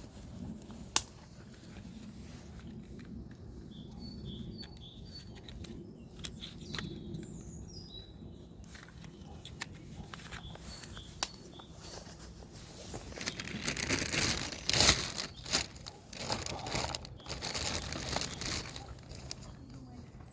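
Rustling and handling noises with scattered clicks, loudest in a run of bursts past the middle, with a few brief bird chirps in the first half.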